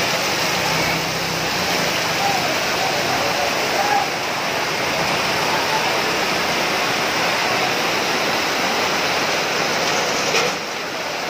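Heavy rain pouring down and floodwater rushing along a street, a loud, steady hiss. Faint voices come through the water noise a few seconds in, and there is a brief knock near the end.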